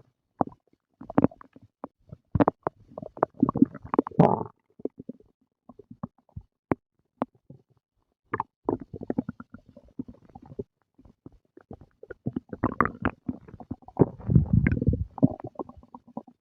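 Human stomach growling and gurgling while digesting after a meal: irregular pops and gurgles coming in bursts, with a quieter stretch in the middle and a longer, deeper rumble near the end.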